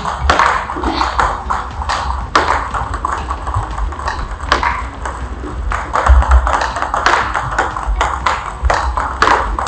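Table tennis balls clicking off the table and the paddles in an uneven run, roughly two hits a second, during a blocking drill in which the blocks come off a long-pimpled rubber.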